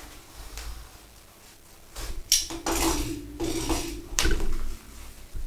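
A parcel being opened: packing tape slit with a utility knife, then the tape and wrapping torn and rustled by hand, with loud ripping bursts from about two seconds in.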